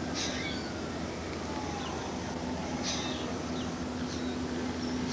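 Short, high bird calls twice, about three seconds apart, over a steady low hum and a faint tone that slowly falls in pitch.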